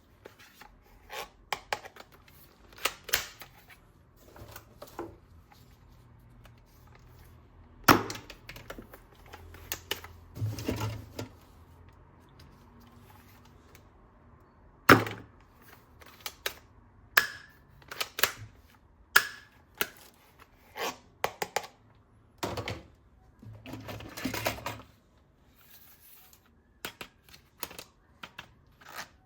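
Hard plastic clicks, taps and knocks at irregular intervals from toy gun parts being handled, with a few sharper snaps standing out, the loudest about 8 and 15 seconds in.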